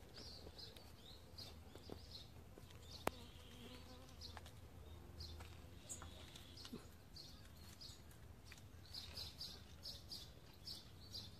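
Near silence: faint outdoor ambience with scattered short, high chirps and a single sharp click about three seconds in.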